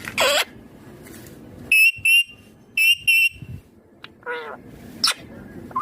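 Indian ringneck parakeet calling: a sweeping call at the start, then two pairs of shrill, clipped squawks about two and three seconds in, and a few brief sliding calls near the end.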